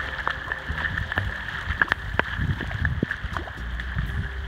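Small hailstones and rain falling on a flooded street and wet lawn: a steady hiss of water with many scattered sharp ticks of individual stones striking.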